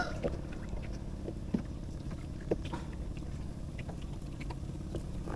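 A few faint clicks and taps from hands working a fishing hook and bait box, over a steady low outdoor rumble.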